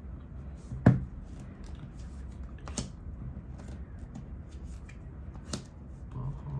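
Tarot cards being shuffled and handled, with soft papery ticks and three sharp clicks, about one, three and five and a half seconds in.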